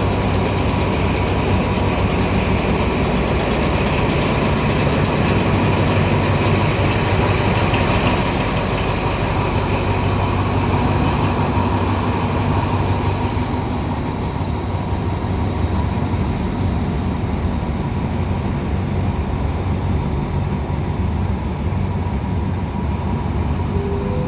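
Alsthom 4225 diesel-electric locomotive idling with a steady low engine drone and a steady whine above it. A single sharp click sounds about eight seconds in.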